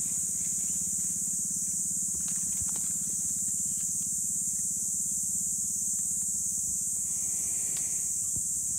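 Steady high-pitched insect drone from the forest, with faint scattered clicks and rustles from a Komodo dragon swallowing a wild boar carcass.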